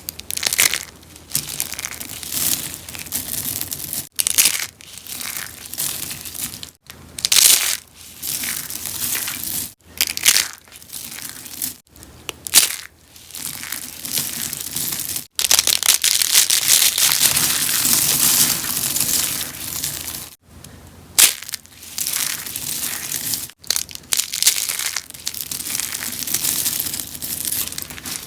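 Rose soaps being crushed and crunched by hand in a run of crunching bouts, each a few seconds long, with short breaks between them and one longer unbroken stretch in the middle.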